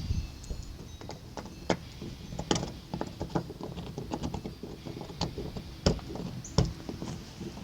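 Strong wind buffeting the microphone in a low rumble, with irregular sharp clicks and knocks from things rattling in the gusts.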